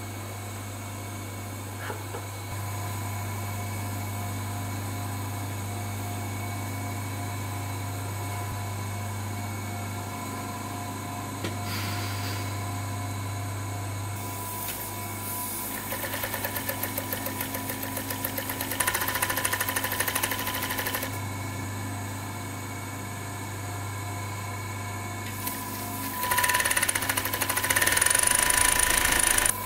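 Industrial sewing machine: its motor hums steadily, with a run of rapid stitching about halfway through and a louder run of stitching near the end.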